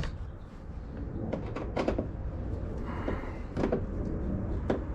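Several separate sharp clicks and knocks, a few spaced about a second apart, from tools and parts being handled while a bolt is taken out of a car's inner door.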